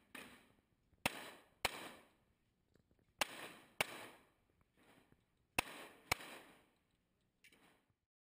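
Pistol shots fired in three quick pairs, about half a second apart within each pair, each shot with a short echo tail. Fainter reports fall between the pairs.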